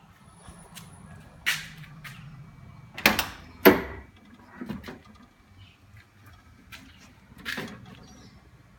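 A few scattered knocks and clatters, the loudest a pair of sharp knocks about three and a half seconds in.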